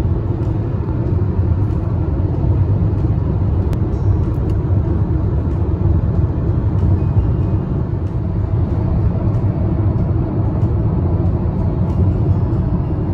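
Steady low rumble of a car driving at highway speed, heard from inside the cabin: engine and tyre-on-road noise.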